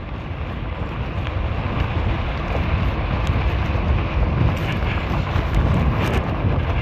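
Wind buffeting the microphone of an electric fat-tire bike riding at speed on cruise control: a steady low rumble of rushing air.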